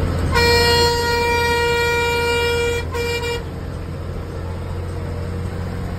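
Bus horn sounding one long blast of about two and a half seconds, then a short second blast, over the steady low hum of the moving bus's engine and road noise, heard from inside the cabin.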